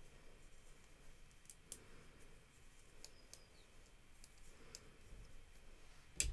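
Faint, scattered clicks of a knitting needle and stitch holder knocking together as chunky wool stitches are slipped from the holder back onto the needle, with a sharper click near the end.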